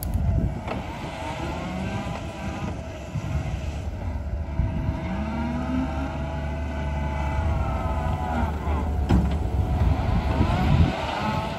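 John Deere compact track loader's diesel engine running as the machine drives, with a whine from the machine that bends up and down in pitch. The engine note rises about four to five seconds in.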